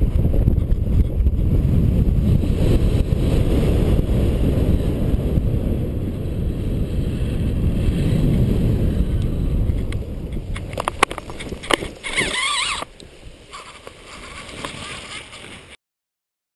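Wind rushing over a helmet-mounted GoPro's microphone as a paraglider flies a low approach over a field. It dies down after about ten seconds as the glider slows near the ground. A couple of sharp clicks and a short wavering tone follow, and the sound cuts off abruptly near the end.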